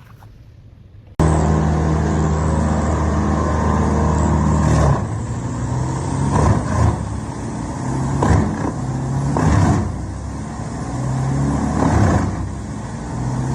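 A large wood chipper starts up abruptly about a second in, its engine running with a steady low drone. From about five seconds in the sound turns uneven, with several loud, noisy swells as wood is fed through and chipped.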